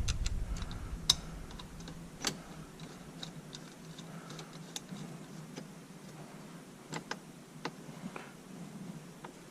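Faint, irregular clicks and taps of bolts being hand-started while the rear seat latch bracket is remounted, with the sharpest clicks about a second in, a little after two seconds, and around seven seconds.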